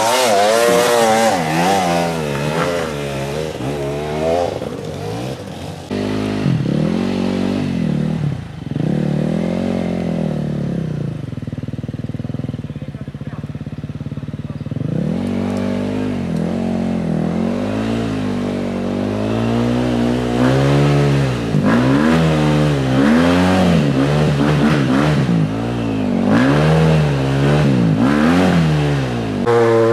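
Hard enduro dirt bike engine revving up and falling back again and again as the bike is stuck on a steep climb and being pushed by helpers; it drops to a low, steadier run for a few seconds near the middle before the revving resumes.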